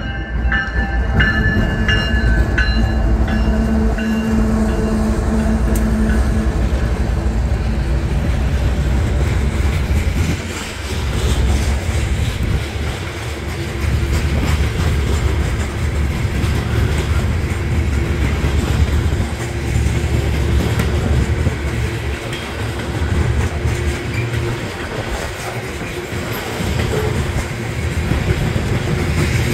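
Freight grain train of covered hopper cars passing close by at a grade crossing. A train horn sounds over crossing-bell dings in the first few seconds, then a steady, loud rumble of the rolling cars with rhythmic wheel clatter.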